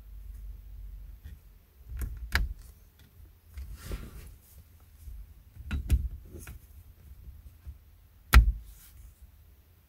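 Hard plastic parts of a clip-on car seat headrest being handled and pressed into place. Several clicks and knocks with soft rubbing between them; the loudest knock comes near the end.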